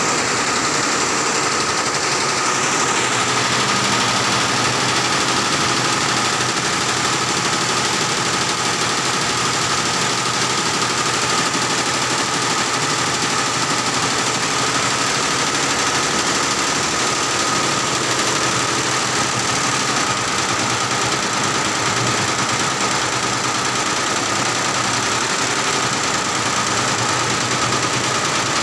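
A 17-head computerised embroidery machine with sequin attachments running and stitching: a steady, dense mechanical noise with a constant whining tone.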